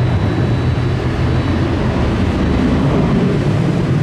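Boeing 737's jet engines at takeoff power as it rolls down the runway and departs: a steady, low-pitched noise.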